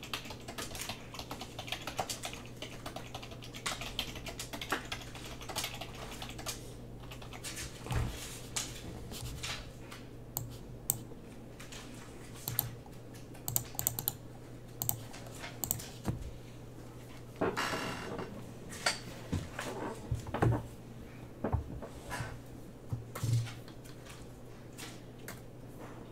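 Typing on a computer keyboard: irregular runs of key clicks, over a steady low hum.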